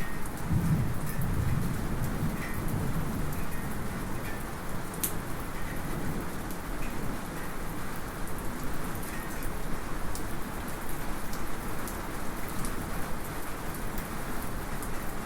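Light rain falling steadily, heard from inside a house, with a low roll of thunder that is not close in the first few seconds. Scattered small drips tick through it, one sharp metallic drip about five seconds in.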